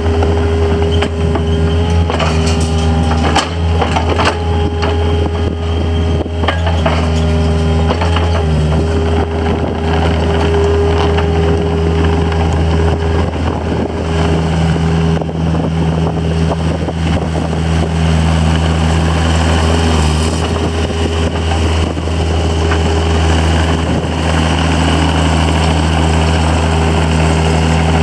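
Takeuchi TB53FR mini excavator's diesel engine running steadily as the machine works its arm and moves on its tracks, with a steady higher hum over the engine note. Scattered clanks come in the first several seconds.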